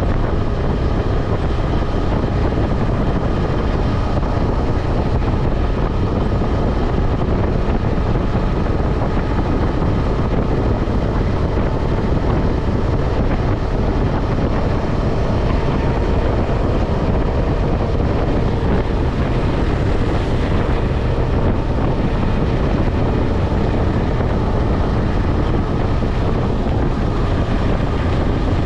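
KTM 250 Adventure motorcycle's single-cylinder engine running at a steady cruising speed, under heavy wind rushing over the microphone.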